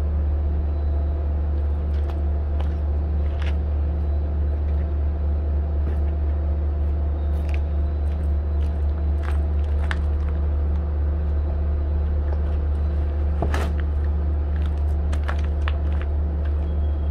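A steady low engine drone at idle, with scattered light clicks and knocks of handling on top.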